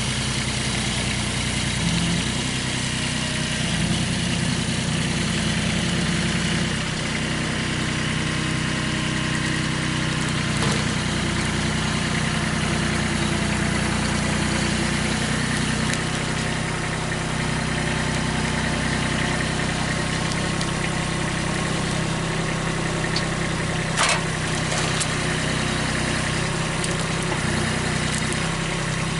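An engine running steadily at an even speed, with one short sharp knock about three-quarters of the way through.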